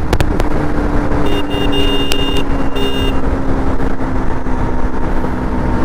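KTM RC 200's single-cylinder engine running at highway speed under heavy wind noise. Its note slowly drops as the rider eases off to slow down. A high steady tone sounds for about two seconds, starting about a second in.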